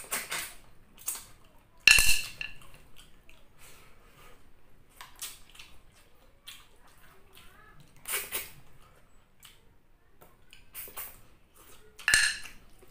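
Snail shells clinking sharply against a ceramic plate, the loudest clink about two seconds in and another near the end, each with a short ring. Between the clinks come a few softer sucking sounds as the sea snails are sucked out of their shells.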